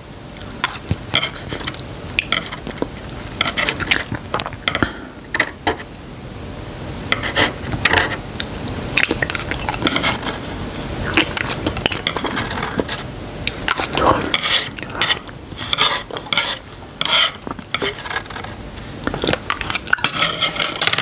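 Chopsticks tapping and scraping against a wooden serving tray, with irregular clicks and scrapes, as the last scraps of noodles are picked up.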